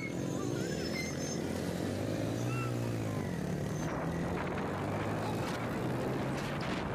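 Motorcycle engine running as the bike picks up speed, its pitch shifting as it goes through the gears, with rushing wind and road noise growing as it speeds up.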